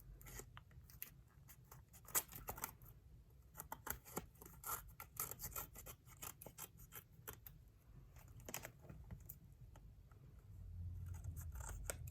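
Scissors snipping through glued-on magazine paper in a run of short, irregular cuts working down the edge of a notebook cover, with a few louder snips along the way.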